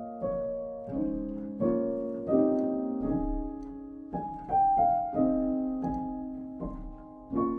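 Background music: piano chords struck and left to ring, changing about once a second at an easy pace.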